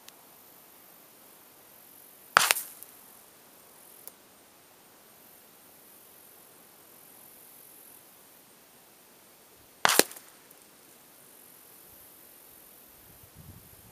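Two rifle shots from a .22LR Ruger 10/22 firing CCI Velocitor high-velocity rounds, about seven and a half seconds apart. Each is a sharp crack with a brief echo trailing off.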